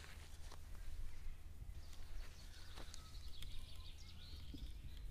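Faint outdoor ambience on a grassy field: a steady low rumble with scattered light clicks, and a distant bird chirping from about two seconds in until near the end.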